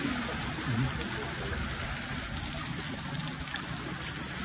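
Water gushing steadily out of a concrete outlet channel, a continuous churning rush with no breaks.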